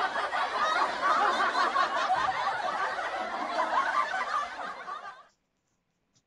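Laughter from several people at once, chuckling and snickering, that cuts off suddenly about five seconds in.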